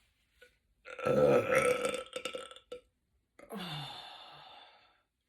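A woman's long, loud burp about a second in, then a second, quieter burp that falls in pitch.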